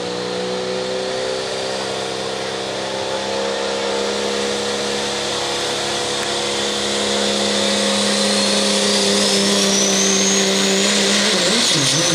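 Pro stock diesel pulling truck held at high revs on the start line, with a high turbocharger whistle climbing steadily as boost builds and the sound growing louder. Near the end the engine note drops and wavers as the truck launches against the weight of the sled.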